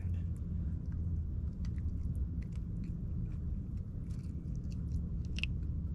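Faint scattered clicks and crackles of a bluegill being handled and unhooked, with one sharper click near the end, over a low steady rumble.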